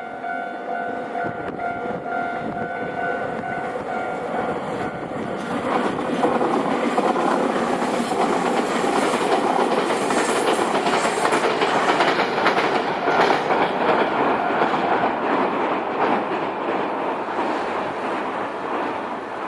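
Level-crossing warning bell ringing at first, then a Nankai electric local train passes over the crossing. Its running noise swells about six seconds in, with wheels clacking over the rail joints, and eases off near the end.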